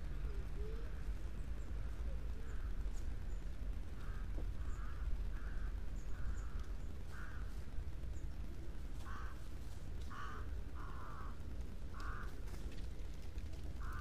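A crow cawing over and over, with about a dozen short, harsh calls at uneven intervals of roughly a second, over a steady low rumble.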